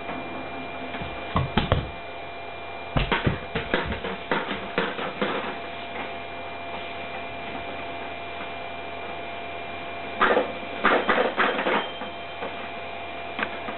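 Plastic balls clattering and rattling through a Kumon Kuru Kuru Chime ball-drop toy in three bursts of clicks: one about a second in, a longer one from about 3 to 5 seconds, and another from about 10 to 12 seconds. A steady electrical hum sits under it throughout.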